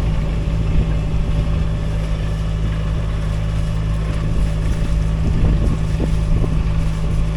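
Sailboat's inboard engine running steadily under load while the grounded boat is worked off a soft-mud sandbar, with some wind on the microphone.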